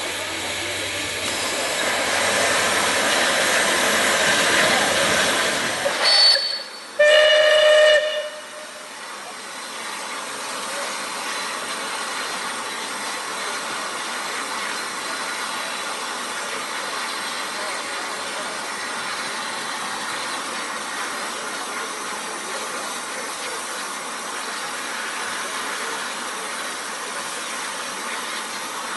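Steam locomotive Clan Line hissing loudly for about six seconds, then a short high peep and a whistle blast lasting about a second. After that comes a steady, quieter hiss of steam.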